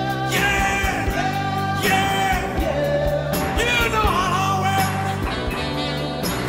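Live rock and roll band music played from a vinyl LP: a sliding lead melody over a steady bass and drum backing.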